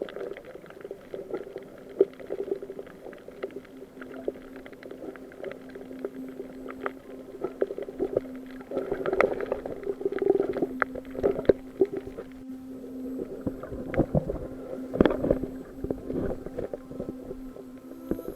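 Underwater sound picked up by a camera held in the sea: muffled sloshing with irregular clicks and knocks over a steady low hum. The knocks grow stronger about halfway through and again later on.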